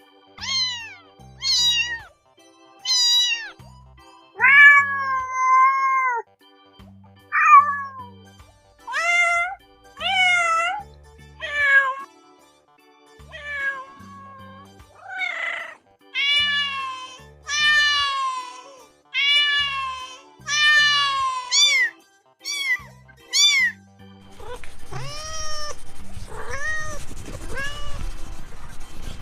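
Domestic cats meowing in a long series of about twenty separate meows, some long and bending in pitch, others short and high. Soft background music runs underneath, and a noisier hiss comes in under the meows for the last few seconds.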